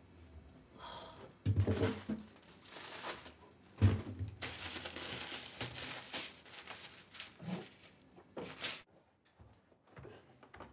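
Paper and wrapper crinkling and tearing in irregular bursts, with a dull knock about four seconds in. The rustling stops shortly before the end.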